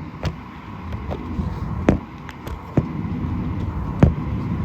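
Steady low hum of an airliner cabin at the gate, with a thin steady tone above it. Four sharp clicks or knocks come at uneven intervals, the loudest near the end.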